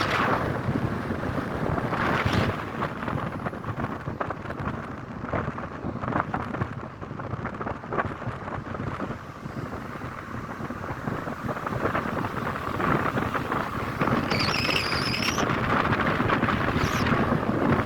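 Wind buffeting the microphone over road and traffic noise, rumbling and uneven, as the camera moves along a busy road. About fifteen seconds in comes a brief high-pitched squeal.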